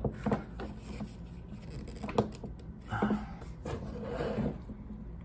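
Small plastic collectible-figure parts being handled and fitted together: scattered light clicks and rubbing, with a sharper click about two seconds in.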